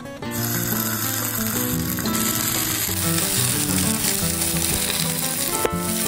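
Boiled momos frying in oil in a nonstick pan: a steady sizzle that sets in just after the start, with background music underneath.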